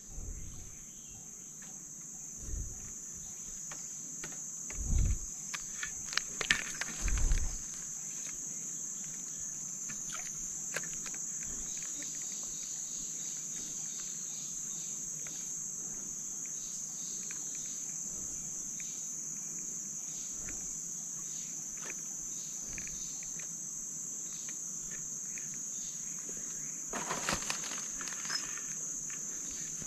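Steady, high-pitched chorus of tropical insects buzzing without a break. A few dull thumps come in the first several seconds, and a burst of rustling comes near the end.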